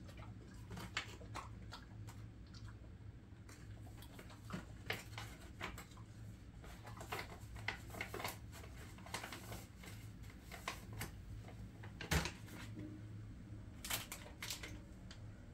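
Jindo mix dog chewing a hand-fed treat: irregular crunching and clicking, with one louder crack about twelve seconds in.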